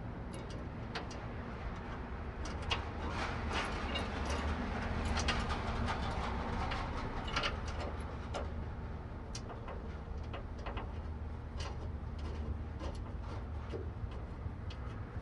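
Scattered light clicks and clinks of hand work on metal, a nut and bolt being worked into a bracket under a truck, over a steady low hum. The clicks come thickest in the first half.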